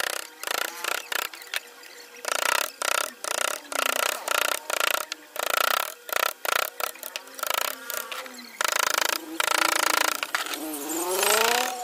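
Claw hammer tapping a carving chisel into a wooden panel, an irregular run of sharp knocks, with the chisel scraping as it cuts the wood between blows.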